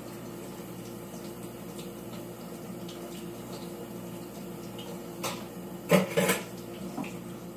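Kitchen tap running steadily as something is rinsed clean of slime, with a few sharp clinks of dishes or utensils about five to six seconds in, the loudest near six seconds.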